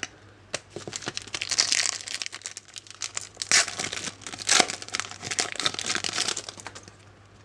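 Trading card pack wrappers being torn open and crumpled by hand: a run of crinkling and tearing crackles, loudest twice in the middle, dying away near the end.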